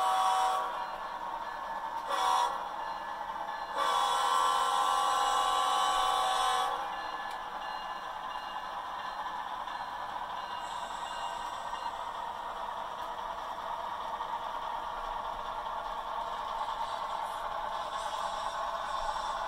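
Sound-equipped model diesel locomotive sounding its horn through its onboard speaker: a long blast ending about half a second in, a short blast about two seconds in, and a long blast from about four to seven seconds. After that the diesel engine sound runs steadily and grows slowly louder as the locomotive approaches.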